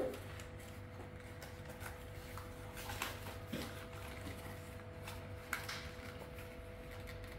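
Cardboard toy box and plastic packaging being handled and opened, with faint light clicks and taps, twice more distinctly about three and five and a half seconds in, over a steady hum.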